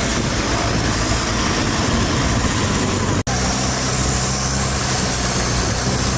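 Boat engine running steadily under a loud rushing noise. The sound cuts out for an instant about three seconds in, then the engine's steady low hum comes back plainer.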